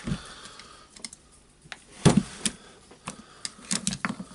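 Screwdriver and small metal parts clicking and knocking against a rotary hammer's housing while its anti-vibration damper parts are pried out, with irregular clicks, a louder knock about two seconds in and a quick run of clicks near the end.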